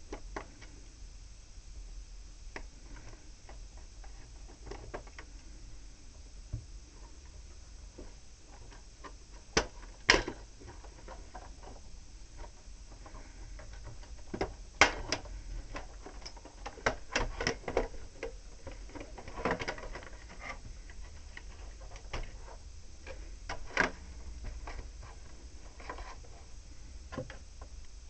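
Scattered plastic clicks, taps and scrapes as a screwdriver and hands work the plastic bumper off a Roomba Discovery robot vacuum. The sharpest snaps come about ten seconds in and again near fifteen, with a run of smaller clicks after.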